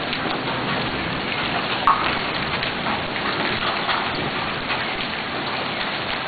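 Heavy rain pouring down in a steady hiss, with many small sharp ticks of drops striking hard surfaces.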